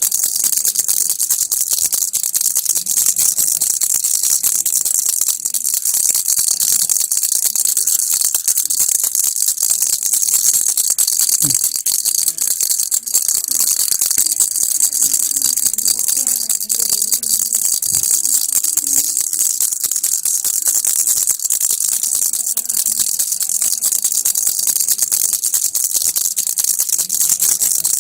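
Baby rattle shaken without pause, a dense, steady, bright rattling of many small pieces inside it.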